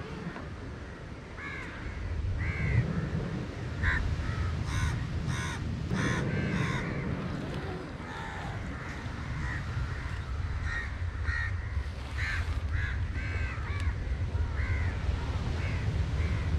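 Crows cawing over and over, many short harsh calls close together, over a low rumble of surf from the sea nearby.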